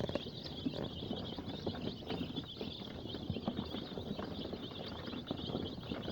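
A brood of five-day-old layer chicks peeping continuously, many high chirps overlapping, with scattered small clicks underneath.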